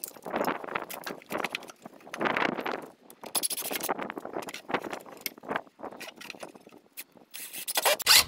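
Irregular scraping, rubbing and clicking of metal hardware at a wooden door frame as the old strike-plate fixes are taken apart.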